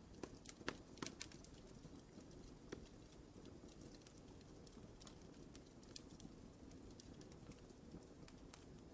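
Fire burning in a fireplace, a low steady rumble with irregular crackles and pops, a few louder snaps in the first second or so.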